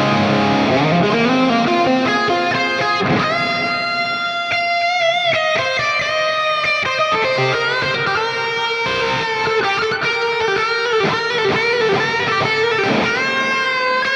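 Electric guitar played through a synth-like patch on an Axe-Fx III modeler: a single-note lead line with long sustained notes, a sliding note near the start and wavering vibrato on held notes later on.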